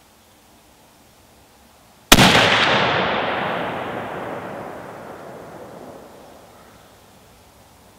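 A single shot from a Savage .300 WSM (.300 Winchester Short Magnum) hunting rifle about two seconds in. The sharp crack is followed by a long echo that rolls away and fades over about five seconds.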